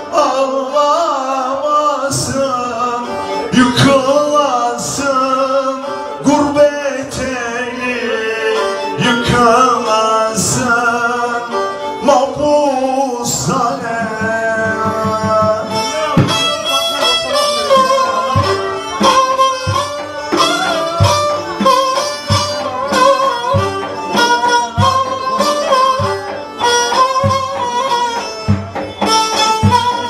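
Live Turkish folk music: a man singing long, wavering lines, accompanied by a bowed kemane and keyboard. About halfway through, the voice drops out and the kemane carries an instrumental passage over a steady beat.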